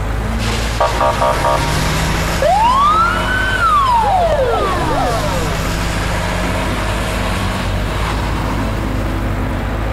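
A single siren wail rises and then falls over about two and a half seconds, with a short run of rapid beeps about a second in.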